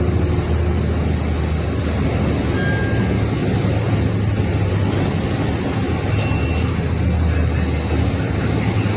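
Heard inside the cabin of a moving city bus: a steady low engine and drivetrain hum under even road and tyre noise.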